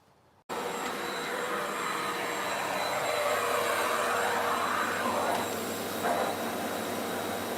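Vacuum cleaner switched on about half a second in and then running steadily with a whine and rush of air; its tone shifts slightly in the middle.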